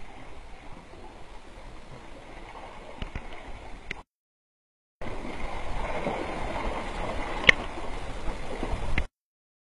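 Fast muddy creek water rushing and gurgling, with one sharp click about halfway through; the sound cuts out to dead silence twice.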